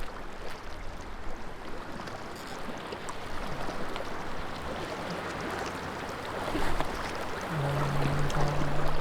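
Water lapping and wind noise, with a short low steady hum near the end that breaks off once.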